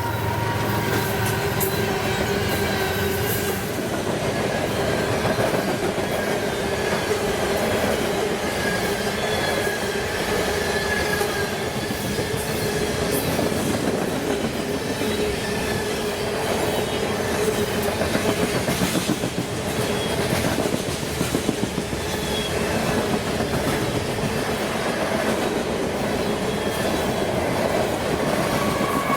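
Train rolling past with a steady rumble of wheels on rail. There is clickety-clack over the rail joints, clustered about two-thirds of the way through, and a faint thin wheel squeal throughout.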